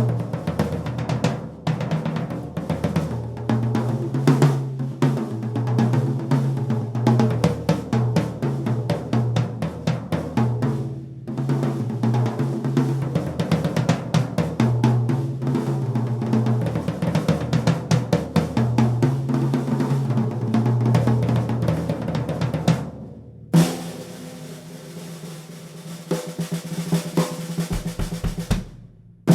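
A 1979 Rogers drum kit (12, 13, 16 and 18 inch toms, 22 inch bass drum, 5-inch Dynasonic snare, Emperor heads on top and a PS3 head on the bass drum) played in a dense run of beats and fills, with a short break about eleven seconds in. Near the end the playing stops, one hit is left to ring for about five seconds, and then another stroke starts.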